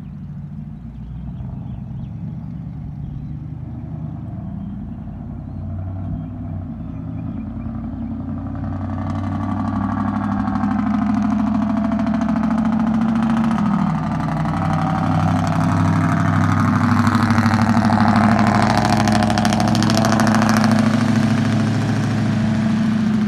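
5.3-litre V8 of a GMC Sierra pickup running with no catalytic converters or mufflers, out through 6-inch tips, a deep exhaust note as the truck drives by. It grows louder over the first ten seconds, dips briefly in pitch about fourteen seconds in, then picks back up and stays loud.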